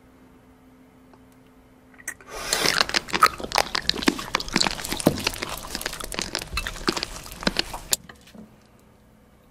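Close-miked crunching and crackling of crisp food, starting about two seconds in as a dense run of crackles that goes on for about six seconds and then stops.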